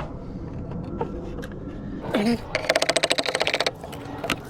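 A rapid, even rattle of sharp mechanical clicks lasting about a second, past the middle, after a quiet stretch and a short voiced sound.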